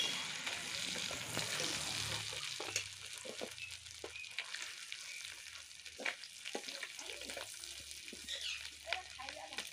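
Hot oil sizzling in a kadai as fried crab pieces are lifted out one by one with a metal spatula, with scattered clinks and scrapes of the spatula on the pan and the steel plate. The sizzling is strongest in the first two seconds, then eases.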